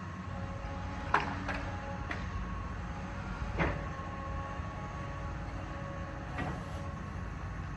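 Heavy demolition machine, such as an excavator, with its diesel engine running steadily and a faint hydraulic whine. About five sharp metal clanks or knocks of debris are spread through it.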